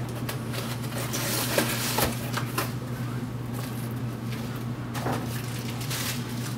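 Cardboard packing and plastic bags being handled: rustling, scraping and light knocks, busiest in the first few seconds and again about five seconds in, over a steady low hum.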